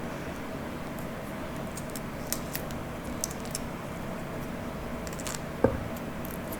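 Soft, sticky eating sounds of palm fruit jelly: scattered faint wet clicks and smacks over a steady low room hum, with one short knock a little over five seconds in.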